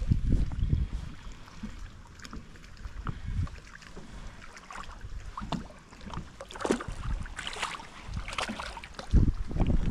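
Wind buffeting the microphone, with splashing at the water's surface in the second half as a hooked black crappie thrashes beside the boat. A loud low rumble of wind comes in near the end.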